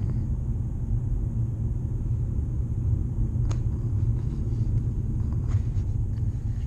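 Steady low rumble of a car heard from inside its cabin, with a couple of faint clicks, one about three and a half seconds in and another about five and a half seconds in.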